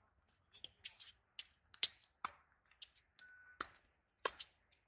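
Tennis rally on a hard court: a series of sharp pops from racket strikes and ball bounces, the loudest about two seconds and four seconds in.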